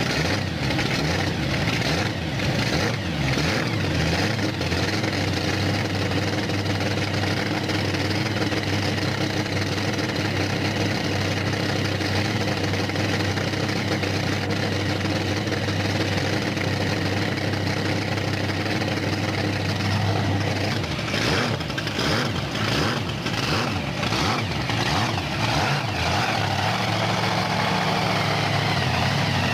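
Monster truck engine running steadily at a low, even pitch, with a stretch of uneven revving about two-thirds of the way through.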